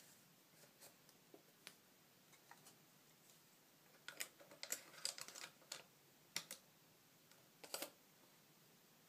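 Quiet clicks and scrapes of a 35 mm film cassette and a plastic guide card being slid down into the bottom-loading body of a 1931 Leica II(D). The clicks come in a dense run about four to six seconds in, with a single click after it and a short burst near the end as the card is pulled out.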